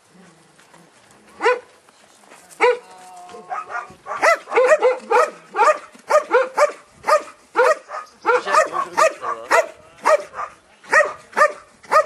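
A dog barking at a decoy who stands still in front of a hiding blind, holding him at bay without biting. Two single barks, then from about four seconds in a fast run of barks, two to three a second.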